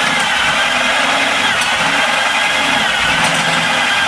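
Corded electric drill running a step drill bit through sheet metal, its motor running steadily under load with a slight rise and fall in pitch as the bit cuts.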